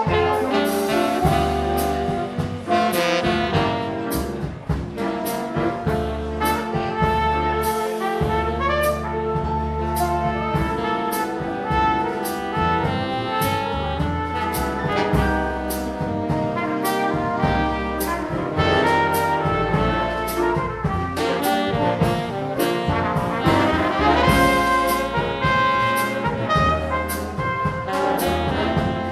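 Big band playing swing jazz: trumpets, trombones and saxophones in full ensemble over a walking bass and steady drum beat.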